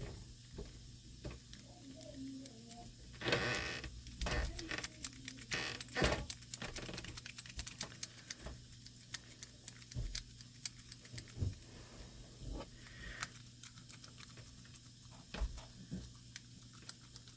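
City rake being raked in and out of a Brinks padlock's keyway, its teeth rattling over the pin tumblers as a quick run of small metallic clicks. Denser rattles come about three seconds in and again around six seconds.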